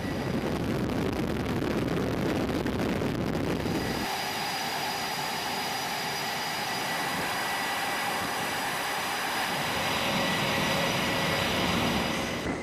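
Steady flight-deck noise of jet engines running on an aircraft carrier, a loud rumbling roar with a thin high whine over it. About four seconds in it changes abruptly from a deeper rumble to a brighter, hissing roar.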